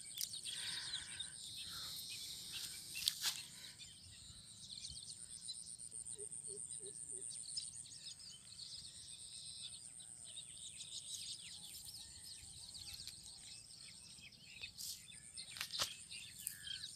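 Outdoor ambience: a steady high-pitched insect drone with birds chirping, broken by a few short rustles and clicks as a nylon fishing net is handled on grass.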